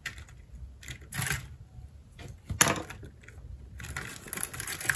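Scattered scratches and clicks on a corrugated cardboard mat as a Japanese rhinoceros beetle and a giant stag beetle are prodded and handled, their clawed feet catching on the cardboard. The loudest scrape comes a little over two and a half seconds in, with a quick run of clicks near the end.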